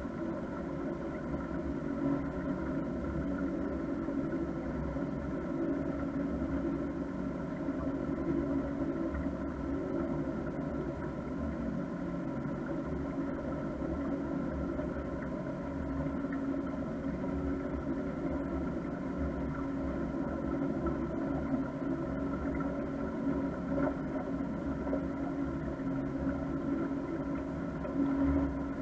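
A motor cruiser's engine running steadily while the boat is underway: a constant, even hum with several steady tones.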